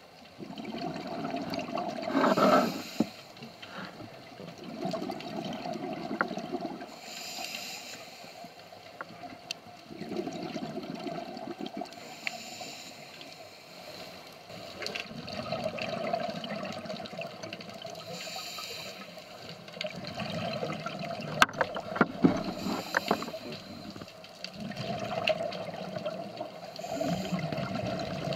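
Scuba diver breathing through a regulator underwater: a hiss on each inhale and a low rush of bubbles on each exhale, about one breath every five seconds, with a few sharp clicks a little past the middle.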